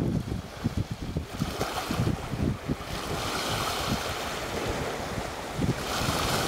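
Small sea waves washing over a rocky shoreline, the hiss of the water swelling around three seconds in and again near the end, with gusts of wind rumbling on the microphone.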